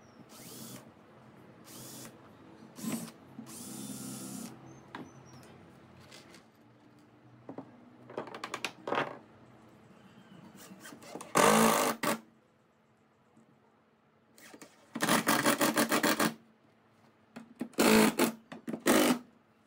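Cordless drill boring pilot holes and driving screws into pallet-wood boards in short bursts. Several brief quieter runs come first, then louder bursts of about a second each near the middle and twice near the end.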